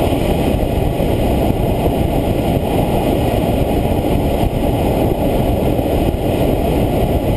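Steady rush of air past a glider in flight, heard from inside the cockpit, with no engine.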